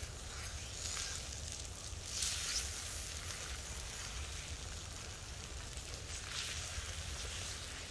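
Eggs and bacon sizzling on the grill of a small wood-burning camp stove. The hiss swells twice, about two seconds in and again about six seconds in, over a low steady rumble.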